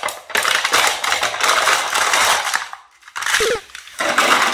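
Thin plastic cups crackling and crumpling under a person's weight on a plank, in two loud bursts of dense crackling with a short break about three seconds in.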